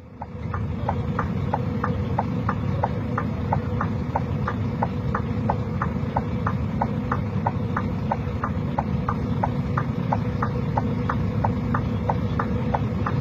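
A vehicle's hazard-light relay ticking evenly, about three clicks a second, over the steady low rumble of an idling engine.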